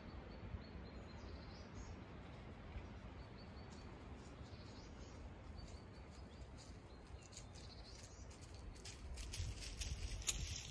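Faint woodland ambience: a few thin bird chirps over a low steady rumble, with sharp rustling clicks that become more frequent and louder over the last few seconds.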